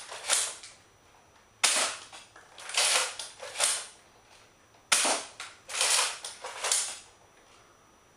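Nerf Deploy dart blaster firing twice, about three seconds apart, each sharp snap followed by two rasping mechanical strokes as the blaster is primed again.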